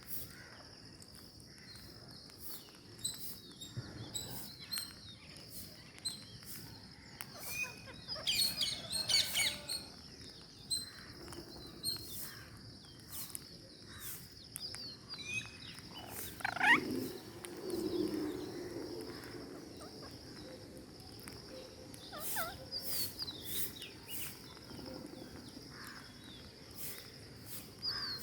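Parrots calling: scattered short squawks and chirps, busiest about eight seconds in and again around sixteen to eighteen seconds, over a steady high-pitched buzz.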